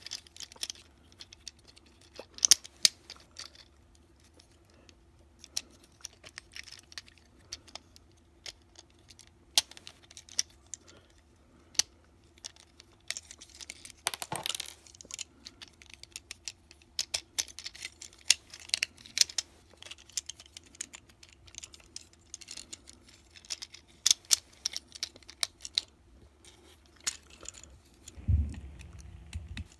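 Irregular plastic clicks and snaps of a Transformers War for Cybertron Siege Chromia action figure being transformed by hand, its parts clicking and rattling as they are moved. A longer scraping rustle comes about fourteen seconds in, and a dull low bump near the end.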